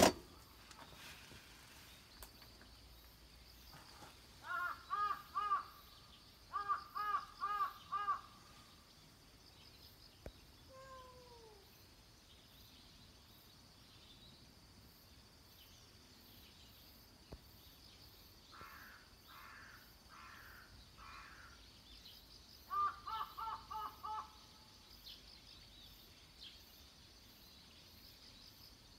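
Crow cawing in runs of four to six quick calls, four runs in all, over a faint steady high hiss.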